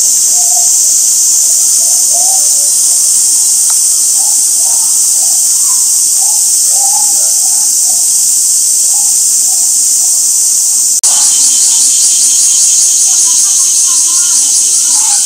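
Loud, steady chorus of summer cicadas, a dense high-pitched buzz. About eleven seconds in it breaks off for an instant and resumes with a fast pulsing beat.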